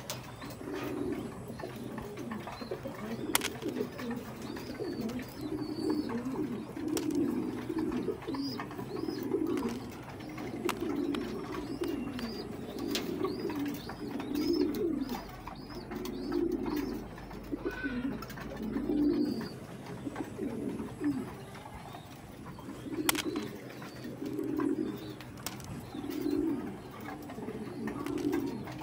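Domestic pigeons cooing over and over, low coos following one another about once a second, with a few faint high bird chirps now and then.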